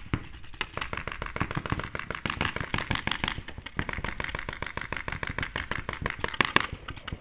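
Paintball markers firing in a rapid, steady stream of shots, with one especially loud crack about six and a half seconds in.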